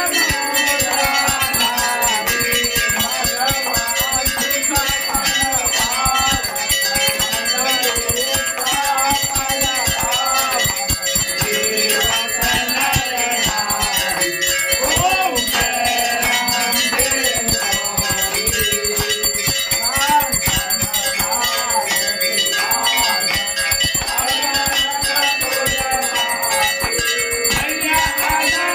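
Temple bells rung rapidly and without pause for the aarti, with voices singing the aarti beneath them.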